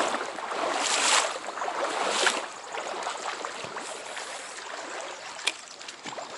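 Running water of a small trout stream, swelling louder in a few surges over the first two seconds or so, then steadier, with one sharp click about five and a half seconds in.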